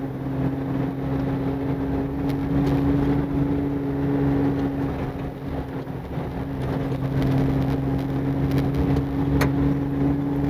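Toyota 4x4 driving at a steady pace on a dirt road: an even engine drone over constant tyre and road noise, with a few sharp knocks from the gravel.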